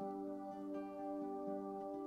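Soft new-age ambient music: layered, sustained tones with gentle note changes.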